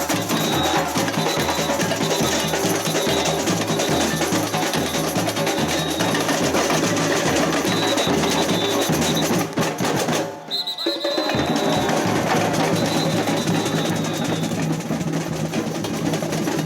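Samba percussion band playing a fast, driving batucada groove, with a repeating bass-drum pattern under dense sharp hand percussion. The drums break off for about a second around ten seconds in, then come back in.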